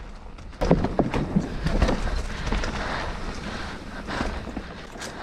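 Wind buffeting the microphone outdoors, a steady low rumbling haze, with a louder stretch of knocks and rustling about a second in.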